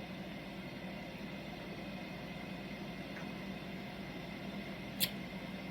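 Steady low background hum with an even hiss, and a single short click about five seconds in.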